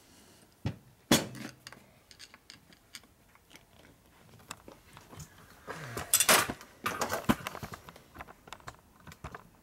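Small metal transmission shifter parts clicking and clattering as they are handled and fitted together by hand: two sharp clicks about a second in, scattered light ticks, then a louder run of rattling clicks about six seconds in.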